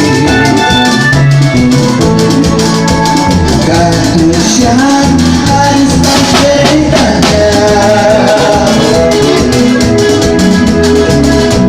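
A band playing Latin American music, with a singing voice over a steady drum beat.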